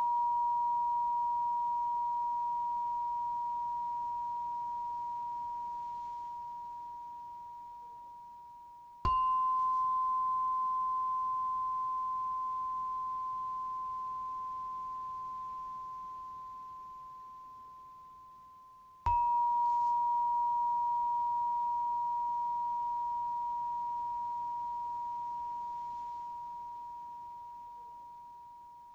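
A struck meditation chime ringing one clear pure tone that slowly fades, struck again about every ten seconds (twice in this stretch), the middle ring slightly higher in pitch. Each strike marks the change to the next breathing phase: breathe in, breathe out, hold.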